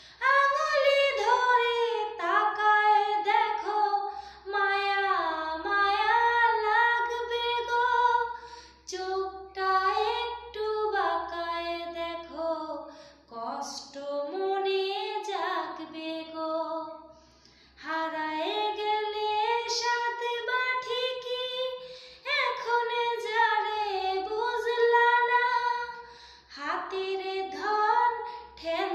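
A woman singing a sad Bengali song unaccompanied, in long sliding melodic phrases with short breaks for breath between them.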